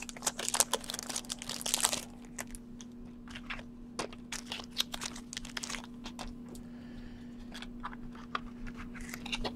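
Clear plastic wrapping crinkling and crackling as a stack of trading cards is unwrapped by hand, dense for the first two seconds, then sparser crackles, over a steady low hum.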